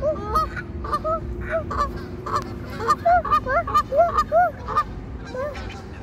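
A flock of Canada geese honking: many short honks that rise and fall, several birds calling over one another, coming thicker from about halfway.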